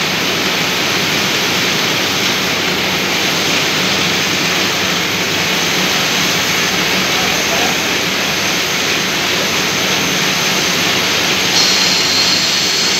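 Large lathe running with a stainless-steel ring job in its chuck: a steady, noisy machine whir. About eleven and a half seconds in, a higher hiss joins it.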